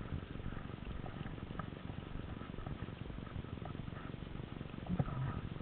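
Footsteps and gear handling noise of someone moving over dirt and gravel, with scattered light ticks and a sharper click about five seconds in.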